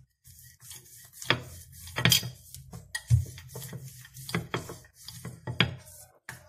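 Wooden rolling pin rolling dough on a stone countertop: rubbing and rolling noises with a series of irregular knocks as the pin meets the stone.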